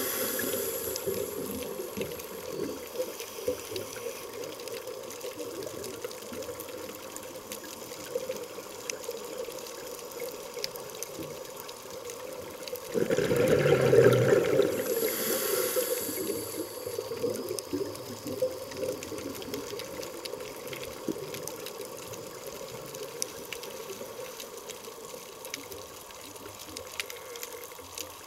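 A scuba diver breathing through a regulator, heard underwater over a steady low water hiss with faint scattered clicks. About halfway through there is a loud burst of exhaled bubbles, then the high hiss of an inhalation; a similar high hiss sounds in the first second.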